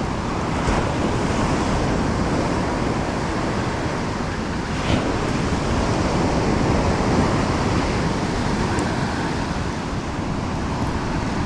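Heavy surf breaking and washing up a sand beach, a steady rushing noise.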